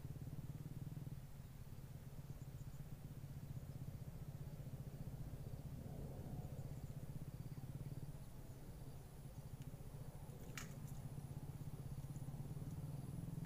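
A steady low motor hum with a fine, even pulse, like a small engine running, and one sharp click about ten and a half seconds in.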